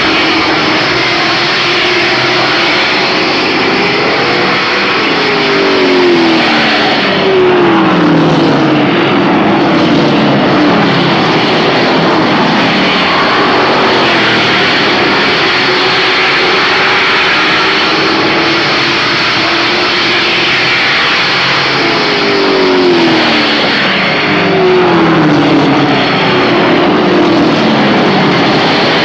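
A field of pickup-bodied race trucks running at speed on a short oval track, a loud continuous engine din. Twice, about a quarter of the way in and again near the end, a bunch of trucks comes past with engine notes falling in pitch.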